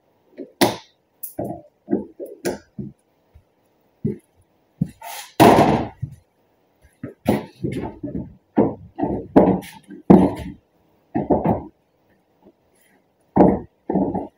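Plastic headlight assembly being handled and pushed into place in a pickup's front end: irregular knocks and clatters of plastic against the headlight opening, with one longer, louder noise about five seconds in.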